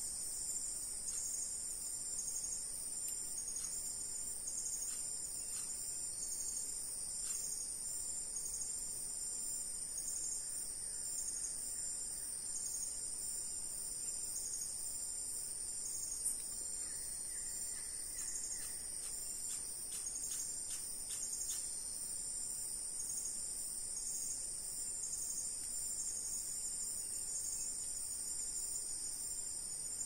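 Steady high-pitched chorus of forest insects, a continuous drone that does not change, with a few faint clicks.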